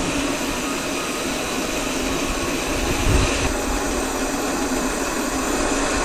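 Steady rush of wind buffeting the microphone of a camera carried on a moving bicycle, with a stronger low gust about three seconds in.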